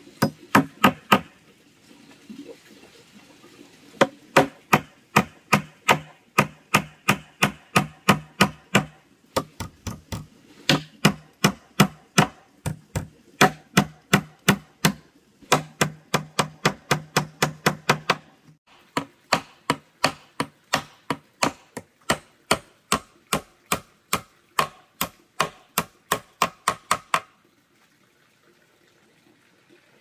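A hand tool striking wood over and over, about three sharp blows a second in long runs with short breaks, each blow ringing briefly through the wood. The blows stop a few seconds before the end.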